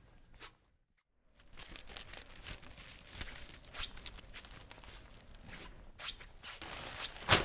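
Footsteps with rustling and crinkling of paper and a carried bag, broken by scattered clicks and a sharp loud knock near the end. The sound drops out to dead silence for a moment about a second in.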